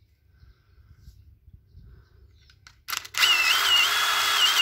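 A couple of sharp clicks as the battery is snapped onto a DeWalt DCF887 brushless impact driver, then about three seconds in its motor starts running free under the trigger: a loud, steady high whine that dips in pitch at irregular moments a few times a second. This is the intermittent purr of a worn driver that loses power at full trigger, which the owner says usually means the brushless motor and switch assembly needs replacing.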